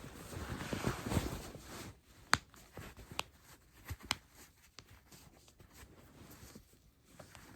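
Rustling of clothes and body shifting, then a few sharp joint cracks from spinal manipulation, the loudest a little over two seconds in and two or three smaller pops over the next two seconds.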